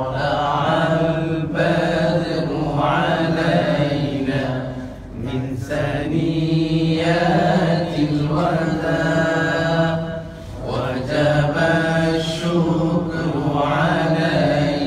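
A man's solo voice singing an Urdu hamd, an Islamic devotional song in praise of God, in long held melodic phrases with brief pauses between them.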